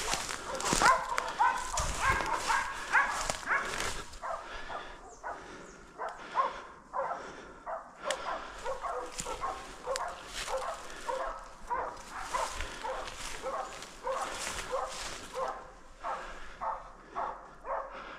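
A pack of hunting dogs barking without pause in quick, overlapping barks, baying at a bear.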